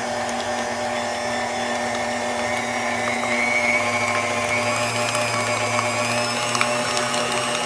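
KitchenAid tilt-head stand mixer running steadily, its motor humming and whining as the beater churns a thin sweet potato pie batter in the steel bowl.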